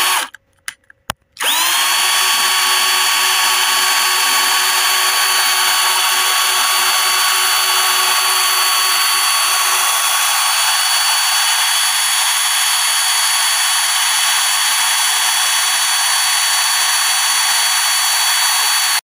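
Power drill running at full speed. It cuts off just after the start and is silent for about a second apart from a few clicks. Then it spins back up with a rising whine and runs steadily.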